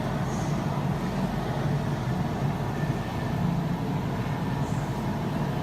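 A steady low mechanical hum with no change in level.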